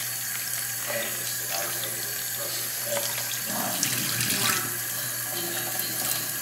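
Kitchen faucet running steadily into a bowl of cooked shrimp being rinsed at the sink, the water splashing louder for about a second around four seconds in as the bowl is tipped under the stream.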